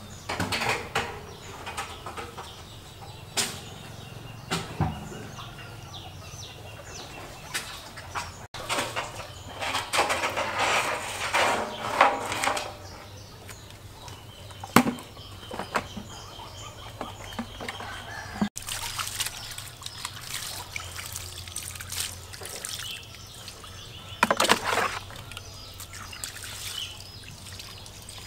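Water splashing and pouring as it is scooped by hand from a concrete water tank and poured from a plastic scoop, with a few sharp knocks of containers. Birds chirp in the background.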